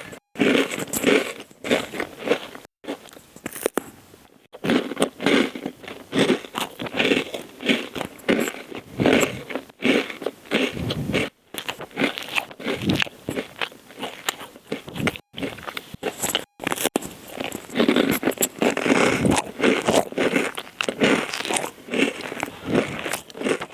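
Close-miked biting and chewing of a crusty baguette, the crust crunching and crackling in quick repeated bites, with a few abrupt breaks.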